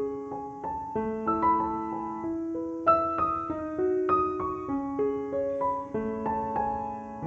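Gentle background piano music: a slow melody of single struck notes that ring and fade over lower held notes.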